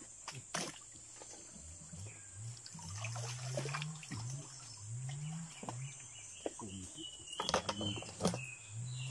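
Muddy water splashing and sloshing with scattered clicks as hands dig through mud and roots in a shallow swamp pool, over a steady high insect drone. A low rising hum repeats about every half second for several seconds.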